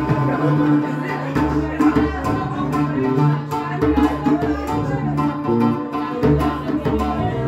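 Live jam on oud, electric bass guitar and djembe: a plucked oud melody over a bass line, with steady hand strokes on the drum.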